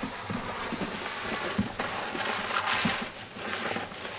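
Peel-and-stick roofing underlayment being peeled and pulled out, a rough crackly rustle that swells a couple of seconds in, with dull knocks of boots stepping on the plywood roof deck.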